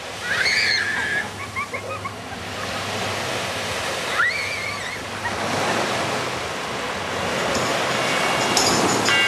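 Surf on a beach, a steady wash of waves, with a few short high calls over it about a second in and again about four seconds in. Music begins near the end.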